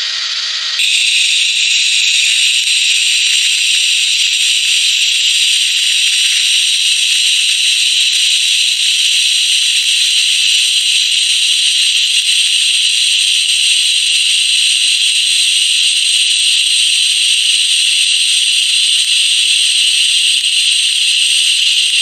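Lift-arc TIG welding arc from a YesWelder MIG-205DS multi-process welder: a steady, even hiss with a faint hum under it. It gets louder about a second in and then holds.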